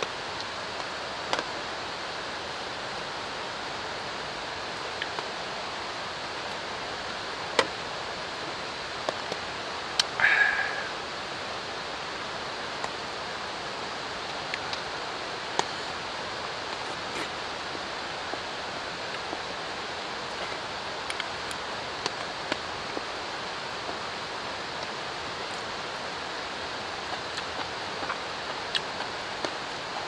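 Steady rushing hiss of drizzling rain and running water, with scattered sharp clicks and drips and a brief clatter about ten seconds in.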